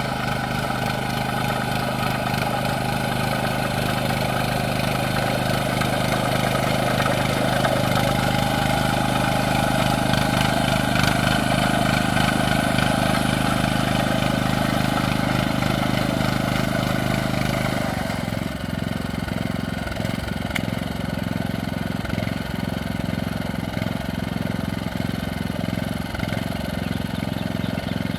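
Engine of a rice transplanting machine running steadily; about two-thirds of the way through its note shifts and the sound becomes less hissy.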